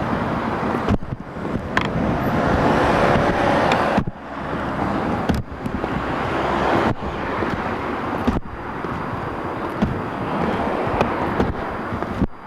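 Outdoor street noise: road traffic and wind rumbling on the microphone. It is loud and steady, but cuts out abruptly for a moment several times.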